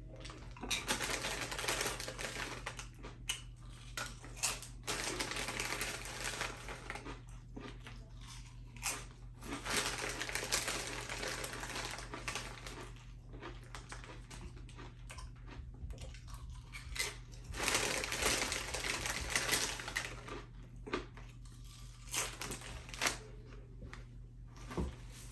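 Close-up chewing and mouth sounds of a person eating a sandwich: irregular soft smacks and clicks over a steady low electrical hum.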